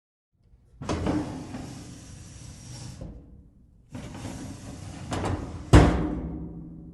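Metal sliding, twice. The first slide starts about a second in and runs about two seconds. The second starts about four seconds in and stops with a loud clunk near the six-second mark.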